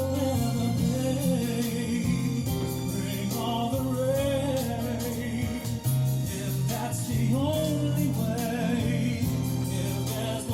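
Background music: a slow song with a sung melody held in long, wavering notes over sustained bass notes.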